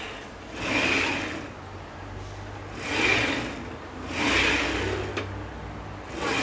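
Carriage of a homemade CNC router built from 3D-printed parts and aluminium extrusion, pushed back and forth by hand along its rails. It makes a rolling, rubbing swish that swells three times, with each stroke running smoothly.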